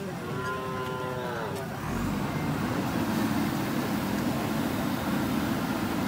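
JCB 3DX backhoe loader's diesel engine running under load, getting louder from about two seconds in as the backhoe arm is worked. Over the first second and a half, a drawn-out pitched tone that drops at its end.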